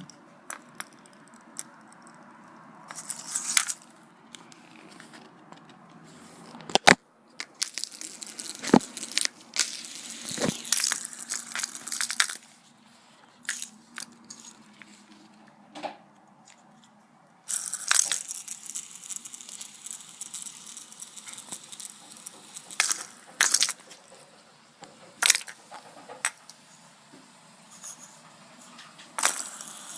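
Irregular clicks, knocks and rustling as a kitten bats at and handles a fidget spinner, with a few sharper knocks in the first half.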